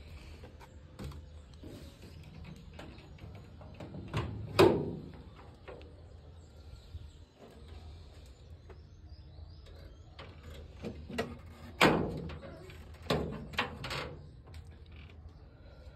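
Parts being handled in a car's engine bay around the air cleaner, with the engine not running: a series of sharp metallic knocks and clunks with short ringing tails, loudest twice about four and a half seconds in and again around twelve seconds in, with quieter clicks and rattles between.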